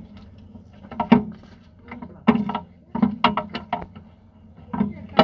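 Irregular metal knocks and clinks of a Massey Ferguson tractor's cast hydraulic pump being worked by hand onto its mounting, in a quick uneven series of sharp strikes.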